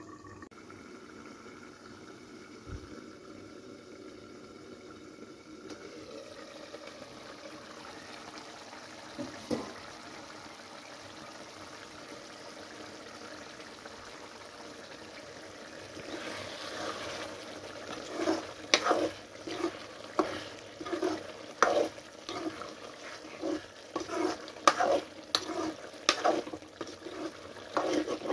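Chicken curry simmering in an aluminium kadai on a gas burner, a steady low bubbling hiss. From about two-thirds of the way in, a steel spoon stirs the thick curry, scraping and knocking on the pan about one and a half times a second.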